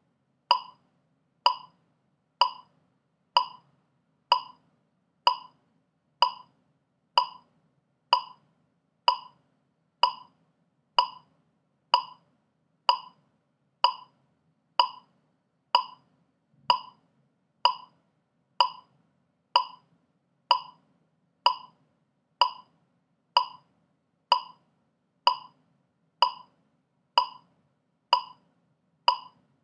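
Metronome clicking steadily at 63 beats per minute: one short, sharp click a little under once a second, evenly spaced.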